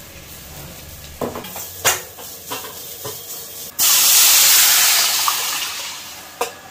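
A few short utensil knocks against the pan, then about four seconds in a sudden loud hiss and sizzle as liquid is poured into the hot rasam tempering oil and spices, slowly dying down over the next couple of seconds.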